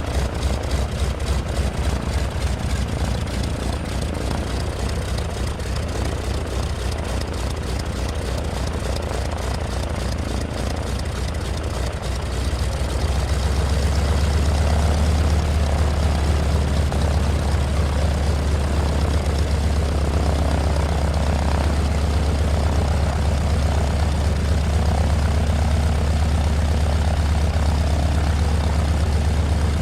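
Single-engine propeller airplane's engine running steadily, growing louder and deeper about halfway through.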